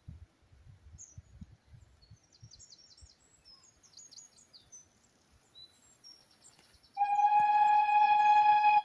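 Small birds chirping in the trees. About seven seconds in, a steam locomotive's whistle sounds one long, loud, steady note as the train approaches in the distance.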